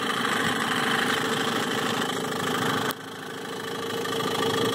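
1960s Mercury Merc 110 9.8 hp two-stroke outboard idling smoothly at low revs. About three seconds in there is a click and the sound suddenly drops, then builds back steadily.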